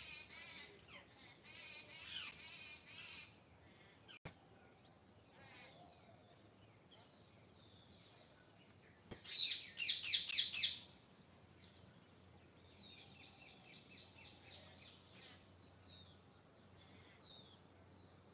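Several songbirds singing and chirping, with a loud run of rapid repeated high notes lasting about two seconds around the middle. A single brief click a few seconds in.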